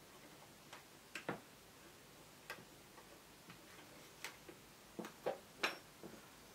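Faint, irregular light clicks and taps of a metal loom hook and rubber bands against the plastic pegs of a rubber-band loom, about a dozen, a few of them sharper.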